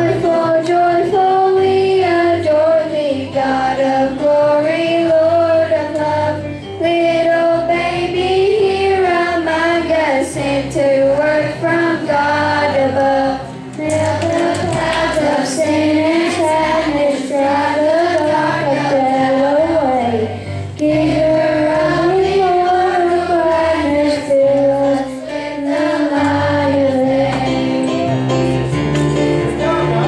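Large children's choir singing a song, with the low notes of an accompaniment underneath.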